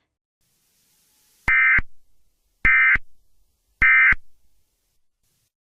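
Three short bursts of Emergency Alert System data tones, the end-of-message signal that closes an EAS alert. Each burst lasts about a third of a second, and they come a little over a second apart.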